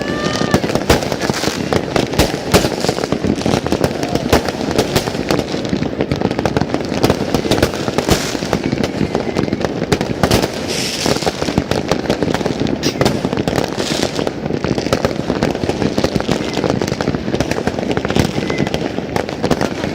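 Fireworks going off in a dense, continuous barrage: many overlapping bangs and crackles with no pause.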